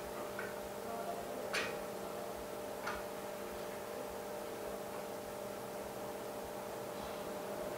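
A few light clicks and taps as a phone's front glass with OCA film is pressed into a metal alignment mold, the sharpest about a second and a half in. Under them runs a steady electrical hum.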